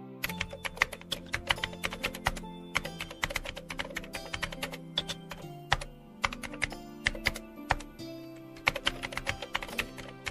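Computer keyboard typing: rapid keystroke clicks, several a second, with short breaks about a quarter, half and three quarters of the way through. Background music plays underneath.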